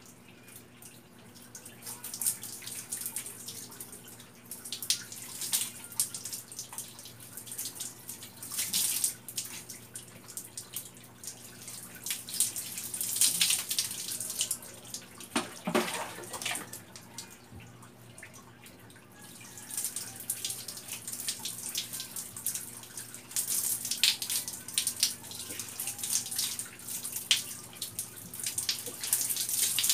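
Bucket bath: water scooped with a plastic dipper and poured over a person, splashing in repeated, irregular pours.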